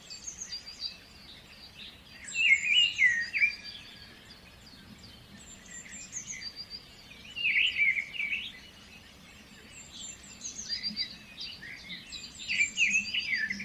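Birds chirping in bursts of quick, high sweeping notes, with short lulls between the bursts.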